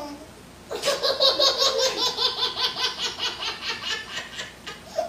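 Hearty laughter that breaks in sharply about a second in and rolls on in quick repeated pulses, dipping briefly near the end.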